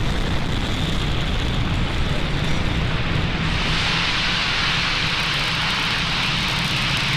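Falcon 9 first stage's nine Merlin 1D engines firing during ascent, a steady loud rocket rumble. The hiss in it grows stronger about halfway through.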